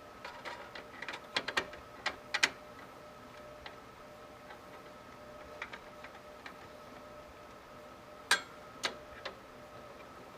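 Screwdriver clicking on the CPU heatsink's mounting screws as they are gone over and tightened, in irregular sharp clicks: a quick cluster over the first couple of seconds, then a few more near the end.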